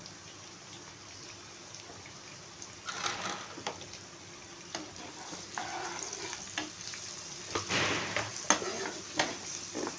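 Onion, garlic and capsicum sizzling in hot oil in a non-stick wok, with chilli powder, turmeric and salt just added. From about three seconds in, a spatula stirs and scrapes the pan, with the strokes busiest near the end.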